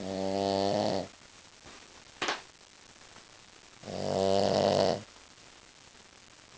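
Shih Tzu snoring in her sleep: two snores, each about a second long and about four seconds apart, with a short sharp noise between them.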